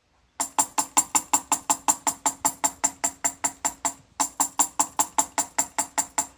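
A rapid, evenly timed series of sharp percussive clicks, about five a second, with a short break about four seconds in.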